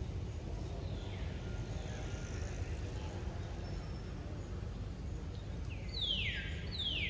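Bird calls: a harsh, high call that falls in pitch, faint twice in the first couple of seconds, then loud twice about a second apart near the end, over a steady low rumble.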